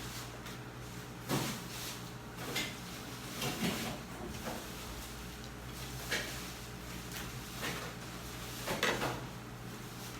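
A handful of short knocks and thuds at irregular intervals, about six across ten seconds, the loudest near the end, over a steady low hum.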